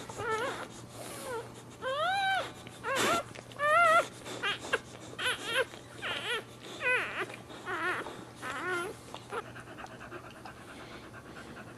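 Newborn Boxer puppies squealing and whimpering: a dozen or so short, high cries that rise and fall, as the mother licks them. For the last couple of seconds the cries stop and the mother Boxer pants quietly.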